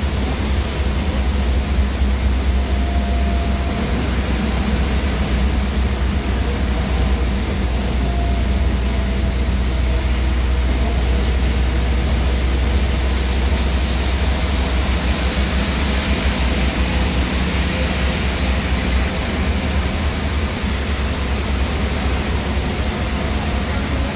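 Steady low drone of a bus engine and road noise heard inside the driver's cab at highway speed, under an even hiss of heavy rain and spray on the windscreen.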